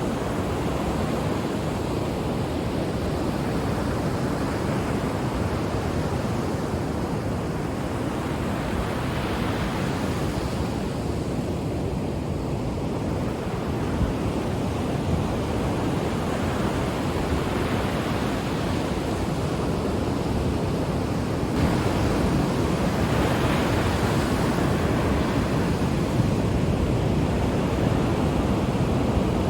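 Ocean waves washing on a shore, a steady rushing surf noise that swells and eases slowly and grows somewhat louder in the last third.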